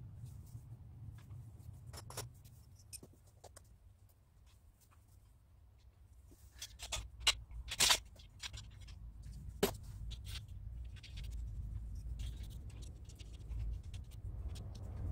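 Galvanized steel greenhouse frame parts being handled and fitted by hand: scattered light metal clicks and knocks, a cluster of sharper knocks about halfway through and one clink with a short ring a little later, over a steady low rumble.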